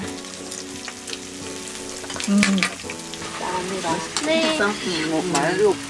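Food sizzling in a hot pan, a steady crackling hiss, with chopsticks and tableware clicking, loudest about two and a half seconds in.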